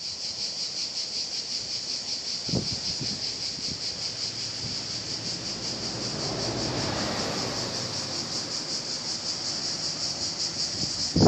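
Steady high-pitched chorus of insects chirring, a fast, even pulsing that never lets up. A soft rush of lower noise swells and fades in the middle, and there are a few faint low thumps.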